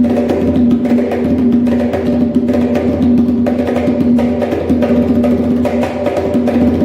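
Drums played in a dense, continuous rhythm of quick strokes over a steady ringing pitch.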